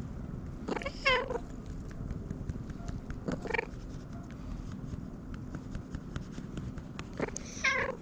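Mackerel-tabby-and-white cat giving three short, odd pigeon-like calls with a wavering pitch: about a second in, at about three and a half seconds, and near the end.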